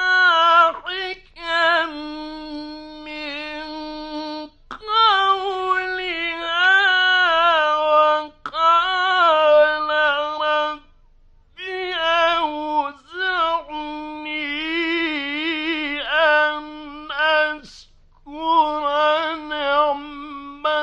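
A male Quran reciter chanting in the melodic mujawwad style. He holds long, ornamented notes in phrases of several seconds, with short pauses for breath between them.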